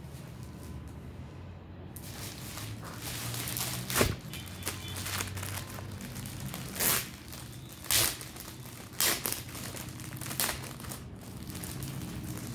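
Clear plastic garment packaging crinkling and rustling as it is handled, with several sharp louder crackles, over a low steady hum.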